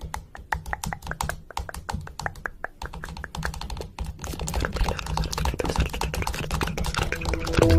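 Rapid, irregular clicking and tapping, many light clicks a second, with a low rumble building underneath from about halfway through.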